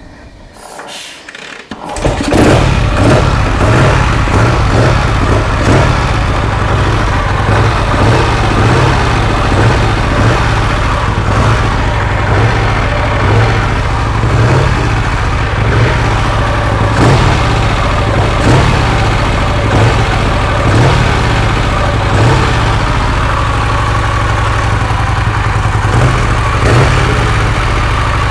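1951 Vincent Rapide's 998 cc V-twin engine being kick-started without a choke, catching about two seconds in and then running loud and steady, on its first start after an oil change.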